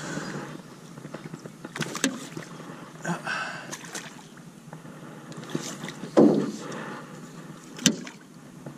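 Irregular knocks and clunks of gear being handled in a small fishing boat, over a background of water and wind noise. The loudest is a thump about six seconds in, with a sharp knock near the end.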